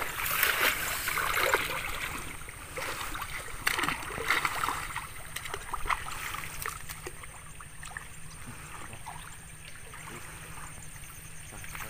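Water splashing and sloshing in irregular bursts, busiest in the first half, then settling to a quieter trickle.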